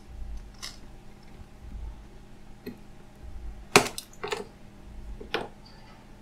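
Sharp clicks and taps of small tools and phone parts being handled and set down on a hard bench during smartphone disassembly, about five in all, the loudest about four seconds in, over soft handling rumble.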